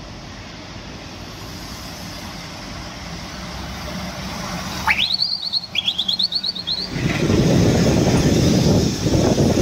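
Scania R-series semi-truck with a container trailer approaching, its diesel engine hum growing steadily louder, then loud engine and tyre noise as it passes close by about seven seconds in. About five seconds in comes a brief high squealing chirp that rises sharply and then wavers for about two seconds.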